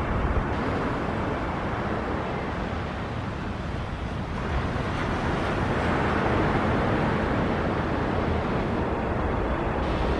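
Jet airliner engine noise from a takeoff, a steady rushing sound that grows louder about halfway through.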